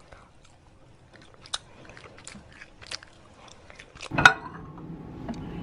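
Light clicks and taps of handling, then a thump about four seconds in, after which a microwave oven starts running with a steady hum.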